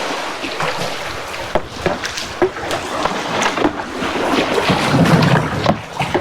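Shallow, fast river water rushing over rocks, with scattered knocks and splashes as a canoe is walked and guided down through the rocks.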